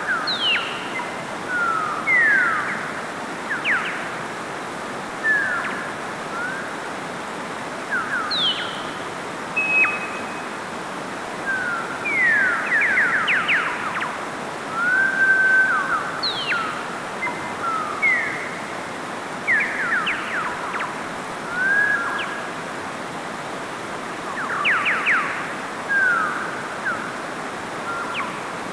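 Mountain stream rushing over rocks in a steady wash of water noise, with short whistled chirps, slides and quick trills laid over it every second or two.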